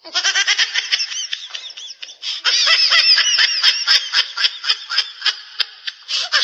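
High-pitched laughter sound effect made of rapid giggling pulses, several a second. It starts abruptly and gets louder about two seconds in.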